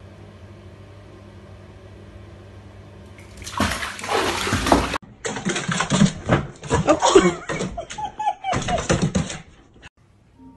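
Water running steadily into a bathtub, then a louder rush of water lasting about a second and a half. After that come several seconds of loud, irregular knocks and noises.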